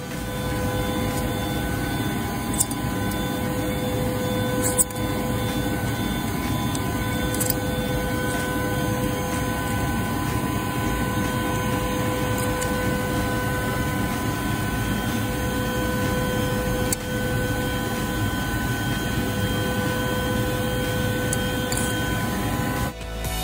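Steady machinery drone with several constant whining tones over it, and a few light knocks, the sharpest about five seconds in.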